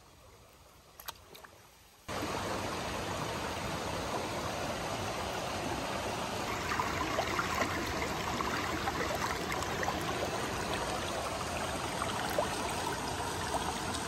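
River stream running, a steady rushing of water that cuts in suddenly about two seconds in, after a brief quiet with a couple of faint clicks.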